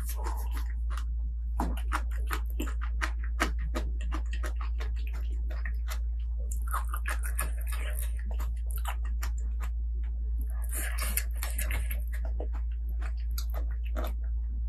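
Close-miked eating: chewing with many quick irregular crunches and wet mouth clicks, over a steady low electrical hum.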